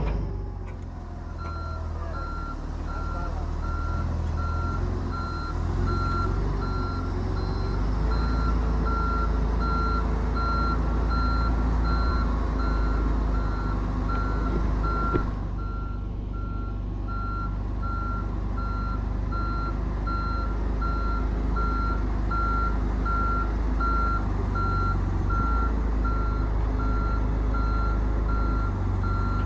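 A vehicle's reversing alarm beeps over and over at an even pace, starting about a second and a half in, over the low steady running of a heavy vehicle's engine.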